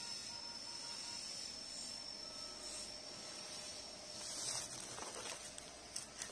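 Footsteps and rustling in dry leaf litter and brush, starting about four seconds in with a few sharp crackles near the end, over a steady faint high-pitched whine.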